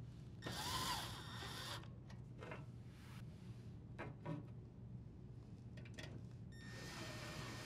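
Cordless drill driver running in two short bursts as it drives in the two screws that secure a dishwasher toe kick. The first, about half a second in, lasts about a second with its whine rising then falling, and the second starts near the end; a few light knocks come in between.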